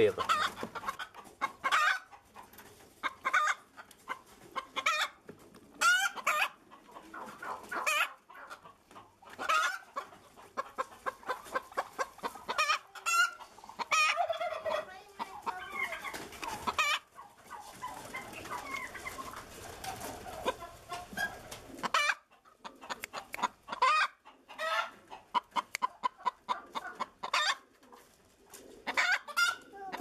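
Poultry clucking and calling: many short calls in quick runs, with a few longer calls among them.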